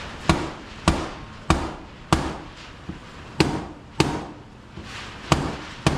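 Mallet striking the frame of a hurricane window eight times, in sharp knocks about half a second apart with two short pauses, to drive the tight-fitting window past a clip it is catching on in the rough opening.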